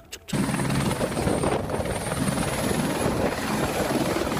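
A real helicopter flying low, with steady rotor chop and engine noise that cuts in abruptly about a third of a second in.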